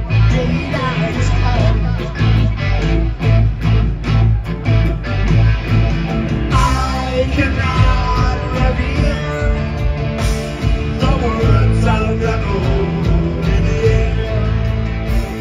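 Rock band playing live and loud: electric guitars, bass and drums, with a voice singing over them.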